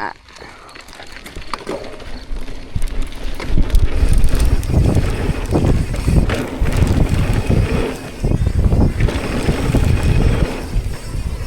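Mountain bike riding down a dirt trail: wind buffeting the microphone and tyres rumbling and jolting over the ground, building up over the first few seconds as the bike gains speed, with a short lull about two-thirds of the way through.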